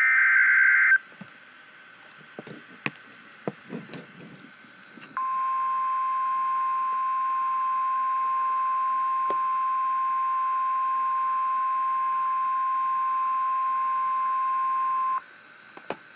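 Emergency Alert System broadcast: the end of a harsh, buzzing SAME digital header burst about a second in, then a few seconds of faint clicks. After that the National Weather Service's single-pitch warning alarm tone sounds steadily for about ten seconds and cuts off sharply.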